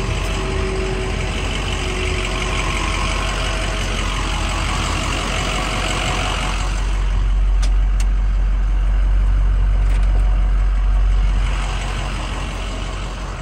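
Truck engine idling, a steady loud rumble whose low end swells for a few seconds past the middle.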